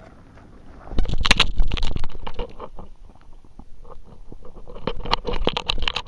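Scraping and rubbing on a camera fixed to a dog's harness as the dog moves, with a loud burst of rubbing about a second in and irregular scrapes and knocks later.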